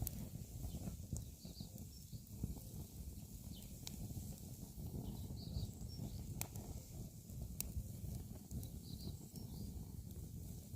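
Wood fire crackling with a low steady rumble and sharp pops every second or two. A bird chirps faintly a few times.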